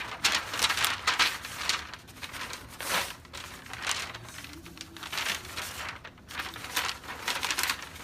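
A large sheet of paper rustling and crinkling as it is handled and moved about, in a string of crisp rustles, heaviest in the first couple of seconds.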